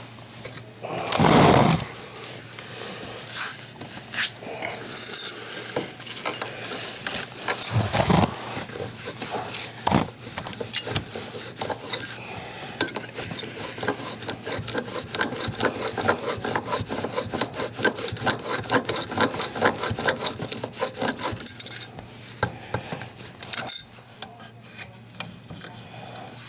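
Hand tools working on a dishwasher's leveling legs: scraping and rubbing with a few knocks, then a long, even run of fast clicks, about five a second, as the legs are turned to lower the unit.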